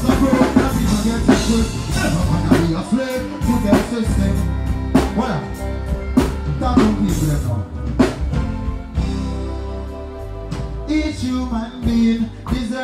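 Live reggae music over a festival stage sound system: a male vocalist sings into a microphone over a steady drum-kit beat and bass. The drums drop out for a couple of seconds about two-thirds of the way through, leaving held chords, then come back.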